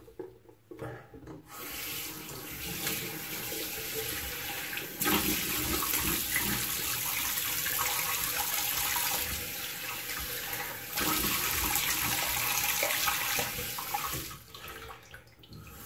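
Bathroom tap running into the sink while the face is splashed and rinsed, the water getting louder in two steps and shutting off near the end: the cold-water final rinse after a shave.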